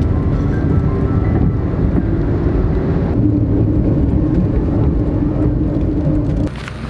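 Car road and engine noise heard from inside the cabin while driving: a steady low rumble with a faint hum. Light marimba-like music notes fade out in the first couple of seconds, and the noise drops abruptly near the end.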